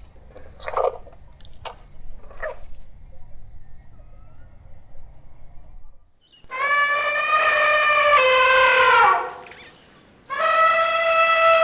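Elephant trumpeting: two long, loud, brassy calls of about three seconds each in the second half, each held at a steady pitch before falling off at its end. Before them come a few short, sharp bursts.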